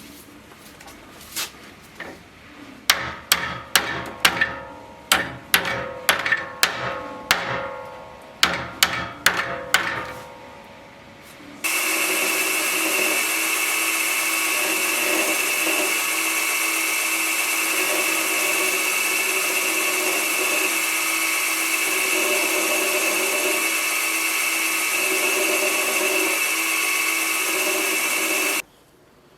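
About a dozen sharp hammer taps with a ringing tone, unevenly spaced. Then an electric power tool starts and runs at a steady pitch for about 17 seconds before cutting off suddenly.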